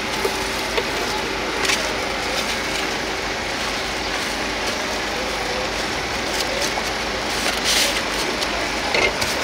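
Steady mechanical hum and hiss, with a few short sharp knocks: one about two seconds in, a slightly longer one around eight seconds in, and one near the end.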